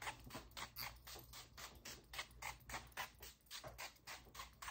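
Glass perfume atomizer being spritzed over and over: a quick run of short, faint hisses, several a second.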